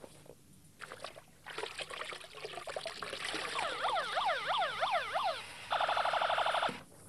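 Electronic siren-like yelp: a tone sweeping rapidly up and down, about three times a second, followed by about a second of a steady harsh buzzing tone that cuts off suddenly. A rising hiss leads into it.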